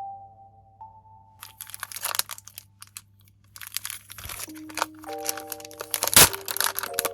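Packaging crinkling and crackling as it is handled, with one loud sharp crack about six seconds in, over light background music of sustained melody notes.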